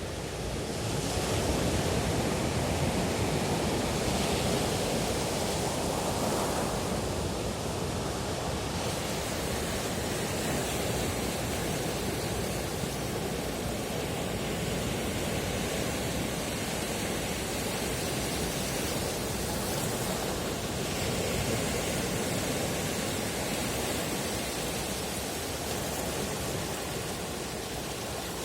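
Sea waves washing onto a beach: a continuous rushing surf noise that swells over the first several seconds, then stays steady.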